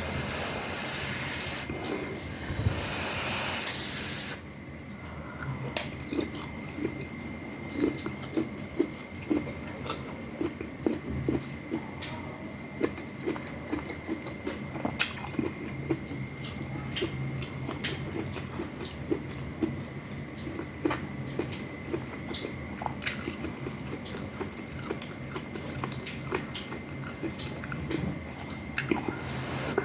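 Eating spicy rice-noodle soup: a steady noisy slurp for about the first four seconds, then chewing and many small irregular clicks of spoon and bowl.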